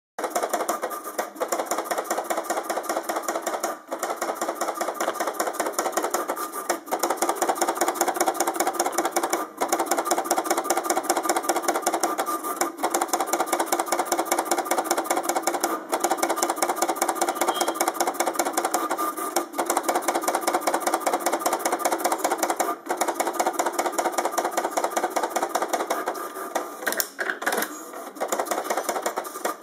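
HP 7475A pen plotter running its built-in self-test plot. The drive motors whir and chatter in a rapid, even ticking as the pen carriage and paper shuttle back and forth drawing hatch lines, with a short break every few seconds.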